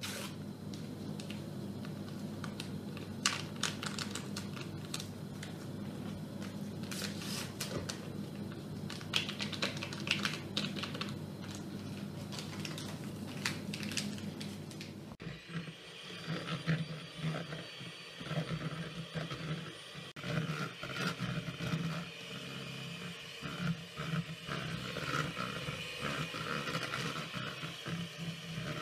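A wrapper being crinkled and torn open by hand over a plastic bowl, with many small clicks and crackles over a steady low hum. About halfway through it cuts to an electric hand mixer running, its beaters in a bowl of cream.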